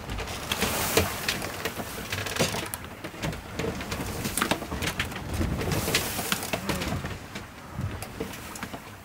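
Wind and splashing water aboard a sailing yacht under way, with scattered clicks and knocks.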